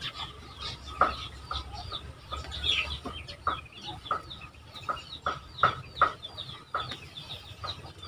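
Poultry clucking in short calls, roughly one or two a second at uneven intervals, with fainter high chirps between them.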